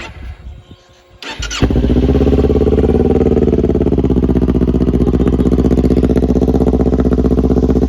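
2021 Kawasaki Ninja 400's parallel-twin engine being started: a brief crank about a second in, then it catches and runs loud and steady, with a note the owner likens to a 1000cc bike.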